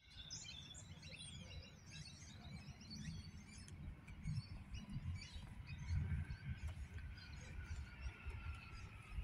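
Birds chirping over an uneven low rumble. From about three seconds in, a faint whine from an approaching Adelaide 4000 class electric train slowly falls in pitch as the train slows into the platform.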